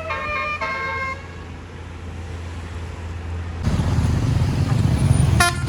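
Multi-note 'telolet basuri' bus air horn playing a quick run of changing notes, which stops about a second in. A bus engine's low rumble follows, growing louder about two-thirds of the way through, and the horn starts sounding again near the end.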